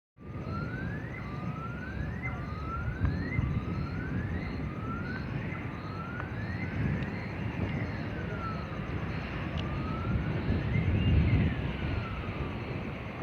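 A siren sounding: short rising sweeps about once a second, changing at about seven seconds in to slower wails that rise and fall, over a steady low rumble.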